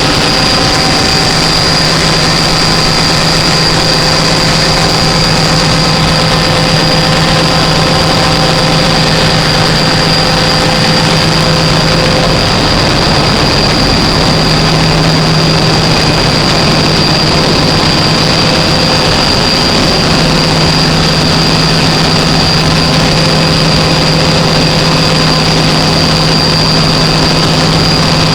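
Gas engine generator running steadily under constant load: an even, loud engine drone with a thin high whine over it, no change in speed.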